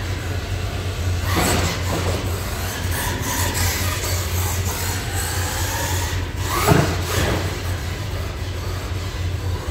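Losi LMT Son-uva Digger RC monster truck driving on a carpeted course, its electric motor whining up and down with the throttle and its tyres rubbing on the carpet. Two louder swells come about a second in and again past the middle.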